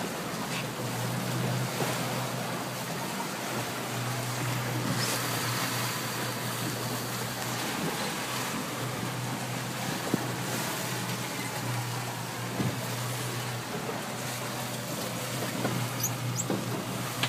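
Boat engine running steadily with a low hum while under way, with wind and water rushing past the hull.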